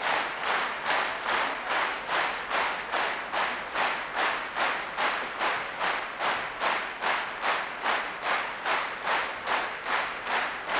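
Crowd clapping in unison, a steady beat of about two claps a second.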